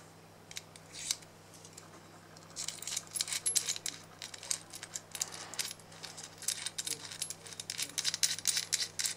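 Light metallic clicks and clinks, irregular and rapid, starting about two and a half seconds in, as the soldering iron and its parts are handled. A faint steady low hum lies underneath.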